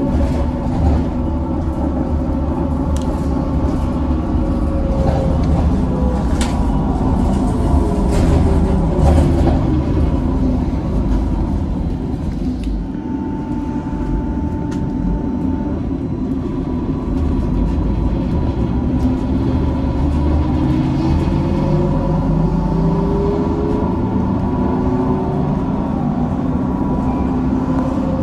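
Cabin ride noise of a 2004 Neoplan electric trolleybus under way: a steady low rumble with some rattles, and the electric drive's whine falling in pitch near the middle, then rising again as the bus picks up speed.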